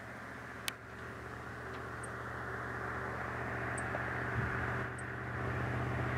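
Steady mechanical hum with a low drone that grows gradually louder. There is a sharp click less than a second in, and a few faint high chirps.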